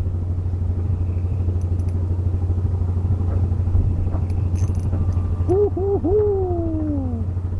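A small engine running steadily with a low, fast-pulsing hum. Near the end, three short whistle-like notes are followed by one long note that falls in pitch.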